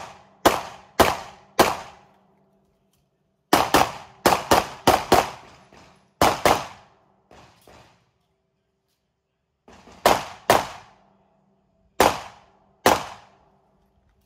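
Pistol shots fired in quick pairs and fast strings of four to six, with pauses of one to two seconds between groups, plus a couple of fainter shots in the middle.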